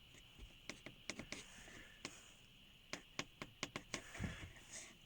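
Faint, irregular crackling clicks from the panoramic-roof headliner of a 2015 Nissan X-Trail T32, set off by light touches of the roof lining near the sun visor.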